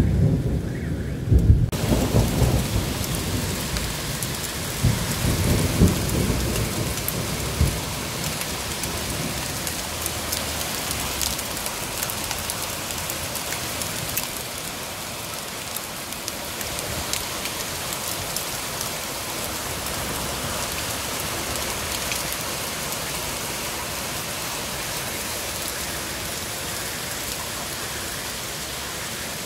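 Thunder rumbling in swells for the first several seconds over heavy rain. The rain hiss comes in suddenly about two seconds in. It then carries on as a steady downpour mixed with hail, with scattered sharp ticks of hailstones striking.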